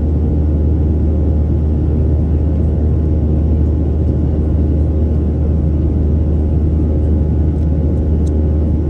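Boeing 737-800's CFM56-7B turbofan engines running at climb power, heard inside the cabin from a window seat over the wing as a steady deep rumble with a few even hum tones.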